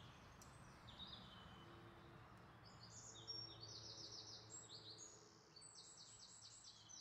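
Near silence, with faint birds chirping in the background: short high chirps and quick little trills from a couple of seconds in.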